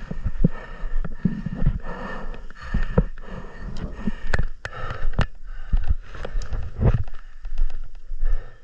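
Irregular sharp clicks and knocks, about one or two a second, over a low rumble.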